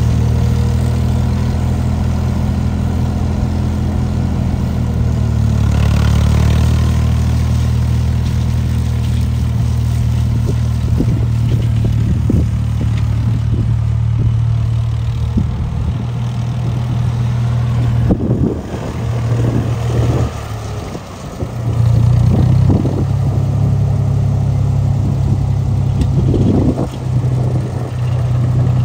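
Ford 4000 farm tractor's engine running steadily as it drives across a field with a rear-mounted rotary mower; the sound weakens as the tractor moves off and comes back strong about two thirds of the way through as it returns.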